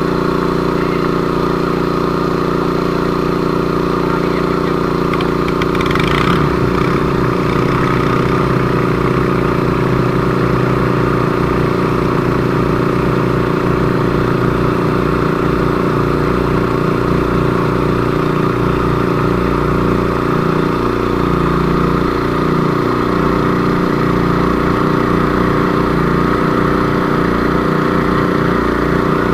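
Engine running loudly at a steady speed. About six seconds in, a brief rush of noise is heard, and an uneven low pulsing joins the engine after it.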